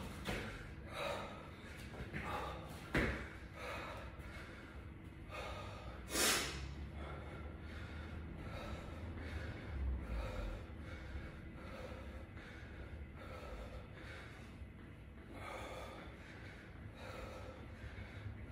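A man breathing hard and fast, recovering after a set of burpees, in repeated in-and-out breaths about once a second. A louder, sharp breath stands out about six seconds in, and a brief knock about three seconds in.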